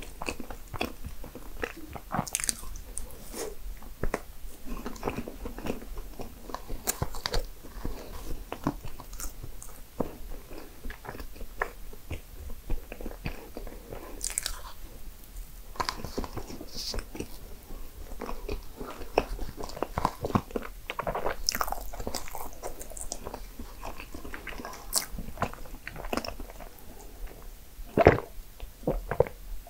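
A person chewing and biting into baked desserts, with many short, irregular crunches and mouth clicks.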